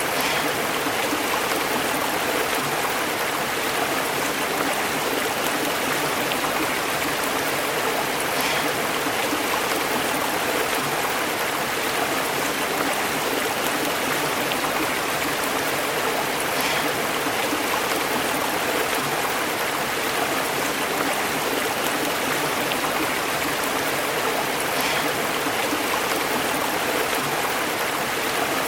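A stream flowing steadily over rocks, its water bubbling and burbling without a break.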